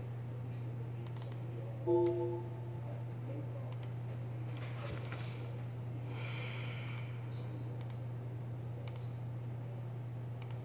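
Computer mouse clicking now and then over a steady low hum of running computer equipment. About two seconds in, a short pitched beep sounds, the loudest sound here.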